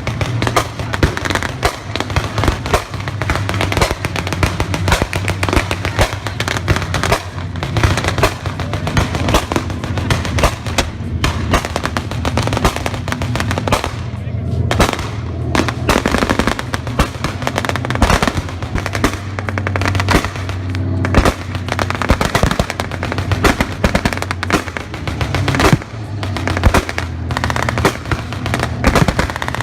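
Simulated gunfire in a continuous barrage: sharp shots and bangs crowd one after another with barely a pause, over a steady low hum.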